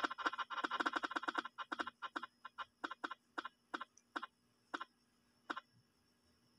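Spin-the-wheel app on a phone ticking through its speaker as the wheel spins down: rapid clicks that steadily slow and space out, the last ones nearly a second apart as the wheel comes to rest.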